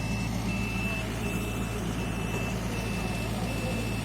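A heavy machine's reversing/travel alarm beeps steadily, each beep about half a second long with short gaps between. Underneath it a diesel engine runs with a steady low drone.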